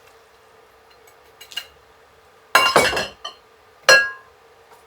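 Kitchenware clinking against a frying pan as stir-fry sauce is poured in and the pan is worked: a faint clink, then a cluster of loud ringing clinks and one more sharp clink a second later.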